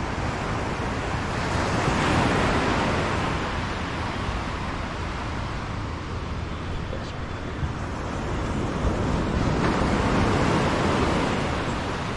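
Sea waves breaking and washing up a beach, swelling twice, once about two seconds in and again near the end.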